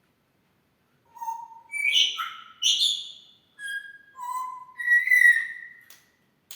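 African grey parrot whistling and calling: a string of about six clear, whistle-like notes, some held at one pitch and some bending up and down, starting about a second in.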